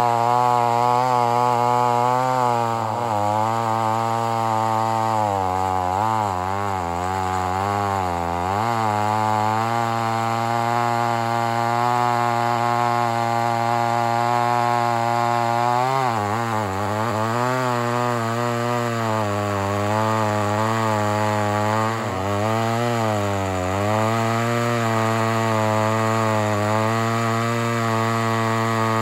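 Vintage 68cc Lombard two-stroke chainsaw at full throttle, cutting through a large log. Its pitch sags again and again as the chain loads up in the wood, dipping deepest about sixteen seconds in, then picks back up.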